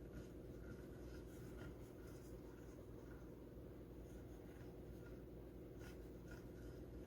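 Near silence: a steady low hum with faint, scattered scratchy rustles and ticks, like light handling of objects.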